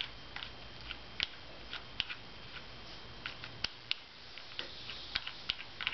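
Light, irregular metal clicks and ticks as the clutch adjusting screw, with its lock nut, is turned out by hand from the centre of a Harley-Davidson clutch assembly. A faint steady hum lies under them.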